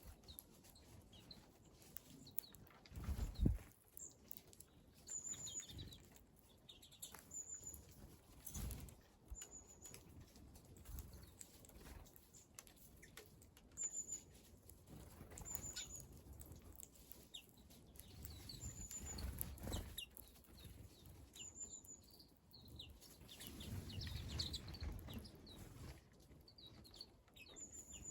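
Small wild birds calling at a winter feeding terrace: short high-pitched calls repeated every second or two, mixed with softer chirps, over irregular low rustles and thumps.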